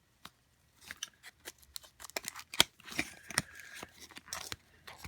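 Small retail box for a speedcube being opened and handled by hand: an irregular run of clicks, taps and light rustling, with one sharp snap about two and a half seconds in.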